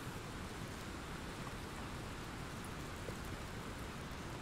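Steady rain falling in an even hiss, with no thunderclap.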